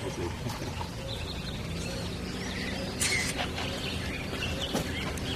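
Birds chirping repeatedly over steady outdoor background noise, with a brief knock about three seconds in.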